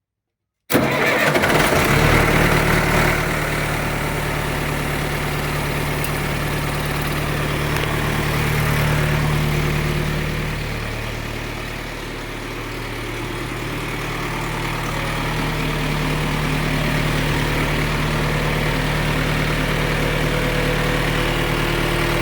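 John Deere 2440 tractor's four-cylinder diesel engine starting suddenly a moment in, loudest for the first couple of seconds, then idling steadily, with a brief dip in level about twelve seconds in.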